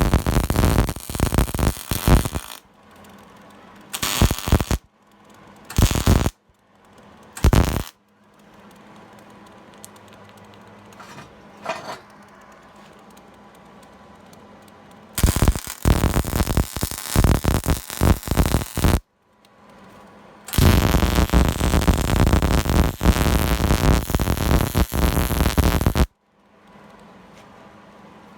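MIG (wire-feed) welder arc crackling and sputtering in bursts: a few short tack welds, then two longer beads of about four and five seconds. A low steady hum fills the pauses between welds.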